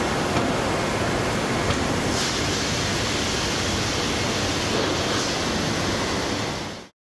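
Steady rushing noise of a running woodworking plant, with its dust extraction and panel-handling machinery. There are a couple of faint clicks, and the hiss brightens for a few seconds in the middle. It cuts off abruptly near the end.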